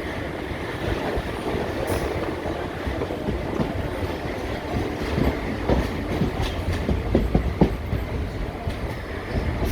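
ICF passenger coach running on the track, a steady rumble with irregular knocks and clatter from the wheels passing over rail joints.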